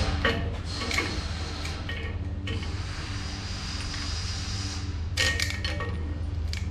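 Steady low mechanical hum with scattered light metallic clinks and knocks from stainless steel pipe fittings being handled and set up for tacking.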